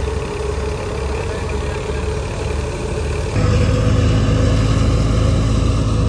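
Tractor-driven wheat thresher running steadily, the tractor engine and the threshing drum making a continuous mechanical hum. About three and a half seconds in, the sound changes abruptly to a louder, steadier hum.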